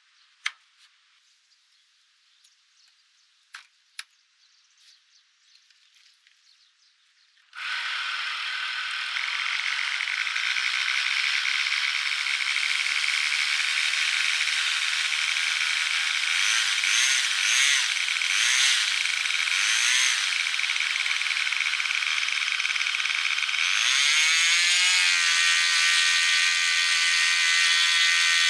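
A few faint clicks, then about seven seconds in an electric starter begins spinning the OS 25FX two-stroke glow engine of a nitro RC airplane, a steady loud whir. Near the end the engine catches: its pitch rises briefly and then settles into a steady idle.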